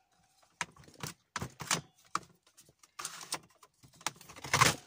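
Paper border punch worked by hand: its plastic handle is pressed down again and again, each stroke a sharp clunk as it cuts through thick black cardstock. Between strokes the card scrapes as it is slid along, and the loudest clunks come near the end. The card is thick enough that the punch sticks and is hard to push through.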